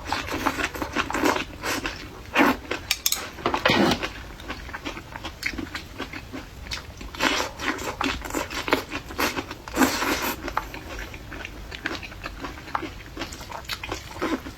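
Close-miked handling and eating of a bowl of pickled-cabbage noodles: irregular wet clicks and smacks of chopsticks and noodles, busiest in two stretches.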